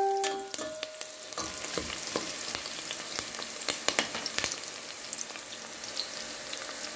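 Chopped garlic and onion sizzling in hot oil in a stainless steel pot, with a spatula clicking and scraping against the pot over the first few seconds of stirring. A clear ringing tone fades out in the first half second.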